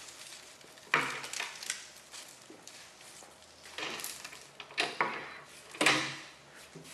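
Unpacking noise: plastic shipping wrap and packing straps being pulled off a crated table, with five or six irregular clatters and rustles, the loudest about a second in and near the end.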